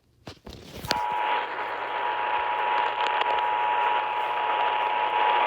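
Emergency Alert System attention tone heard on a Tecsun PL-380 radio: a steady tone starting about a second in, over constant radio static. It signals the start of a flash flood warning. A few crackles of static come just before the tone.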